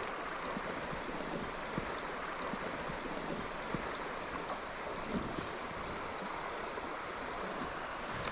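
Steady rush of a shallow river flowing over stones, with a few faint clicks.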